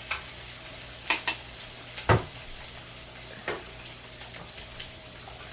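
Onion and garlic sizzling steadily in a pot while a spoon stirs them, knocking against the pot several times in the first few seconds.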